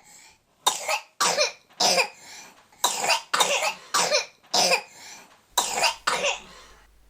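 A person coughing hard and repeatedly: a fit of about nine sharp coughs in quick groups, each breaking off short.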